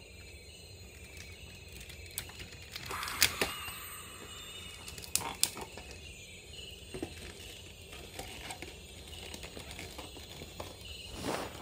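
Parts of a Soul of Chogokin Voltes V combining robot toy clicking and knocking as they are handled and fitted together, with a few sharp clicks about three and five seconds in and a knock near the end. Faint, rapidly repeated chirping runs underneath.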